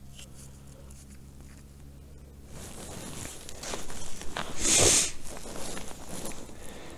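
Close rustling and handling noise of clothing and gear, starting about two and a half seconds in, with one loud swish just before the five-second mark.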